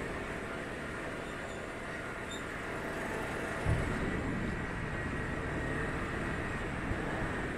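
Steady road and engine noise of a vehicle driving through town streets, with a low thump about halfway through.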